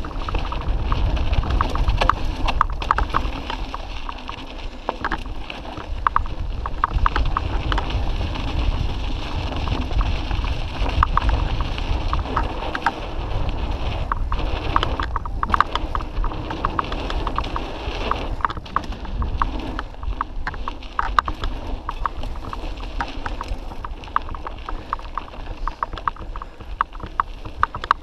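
Mountain bike ride down dry dirt singletrack, heard from a GoPro on the bike: a steady low rumble of wind and tyres on the trail, with constant rattling and clicking as the bike runs over rough ground.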